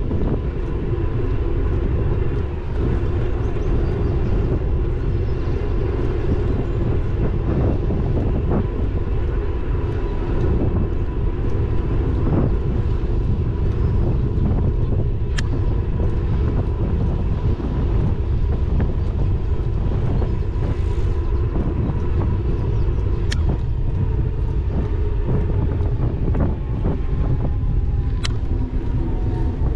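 Riding noise of an e-bike on an asphalt cycle path, picked up by a GoPro Hero 9: a steady low rumble of tyres and wind with a faint steady whine. Three sharp clicks come through, about halfway, two-thirds of the way and near the end.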